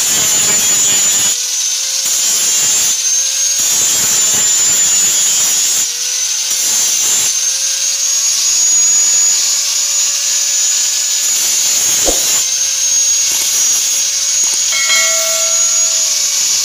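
Electric angle grinder running at speed with a steady high whine, its thin disc grinding against the steel shaft in an electric chain hoist's gear housing. The pitch sags briefly a few times as the disc is pressed harder into the metal.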